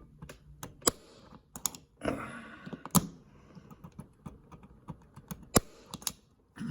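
Irregular small clicks and taps of a diecast toy car and small hand tools being handled on a work surface, with a short scrape about two seconds in.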